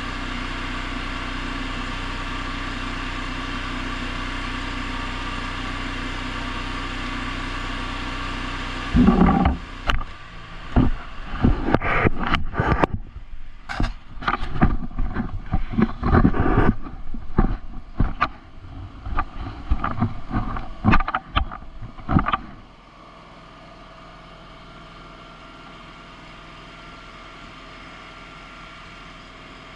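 A small engine running steadily. From about 9 s to about 22 s, loud irregular bursts and sharp cracks break in, then it settles to a quieter steady hum.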